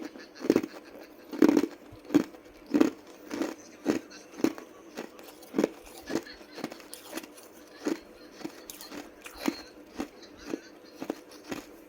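Ice being crunched and chewed between the teeth, close up: a steady run of sharp crunches, about two a second, loudest in the first couple of seconds and softer after.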